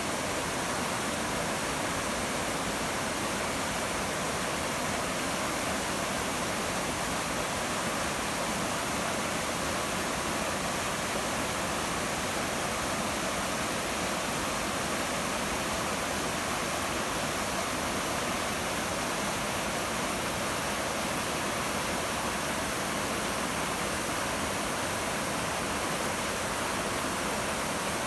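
Mountain creek cascading over rocks: a steady, even rush of water.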